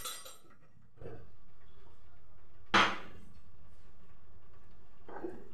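A kitchen utensil knocking sharply against a stainless steel cooking pot a few times, the loudest knock nearly three seconds in, over a steady hiss.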